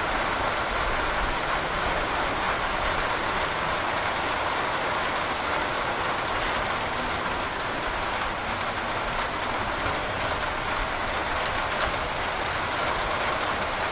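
Heavy rain falling steadily, an even wash of countless drops with no break or change.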